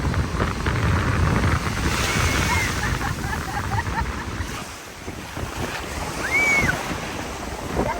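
Ocean surf washing in, with wind buffeting the microphone. Two short high cries sound over it, about two seconds in and again past six seconds.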